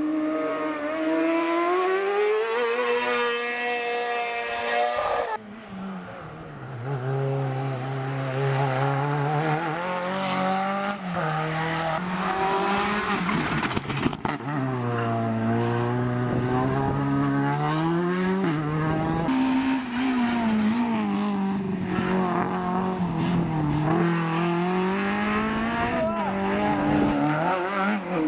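Racing car engines revving hard, their pitch repeatedly climbing and dropping as the cars accelerate and lift, with some tyre squeal. The sound breaks off abruptly a few times and picks up again.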